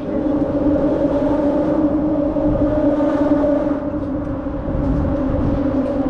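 Road traffic crossing the bridge overhead: a steady drone of tyre hum with two held tones over a low rumble.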